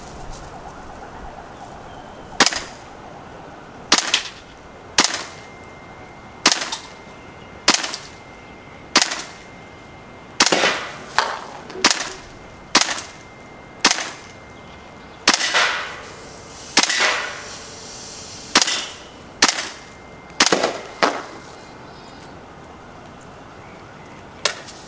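WE SCAR gas-blowback airsoft rifle fired in single shots, about eighteen sharp reports roughly a second apart with irregular gaps. Several shots are followed by a short trailing noise.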